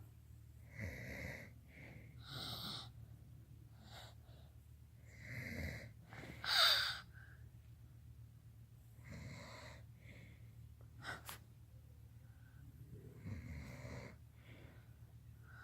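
Snores: about six short, rough, wheezy breaths spaced irregularly a second or few apart, the loudest about six and a half seconds in, over a low steady hum.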